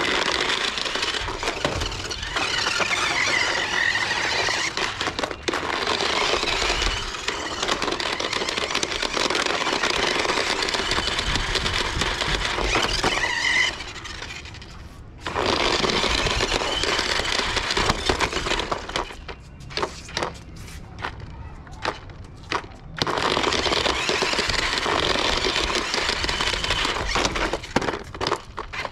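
Tumble Bee RC stunt car's electric drive motors whining and its knobby rubber tyres scrubbing and squealing on rough concrete as it drives, spins and flips. It runs in long stretches, dropping off briefly about halfway through and running in fits for a few seconds after that.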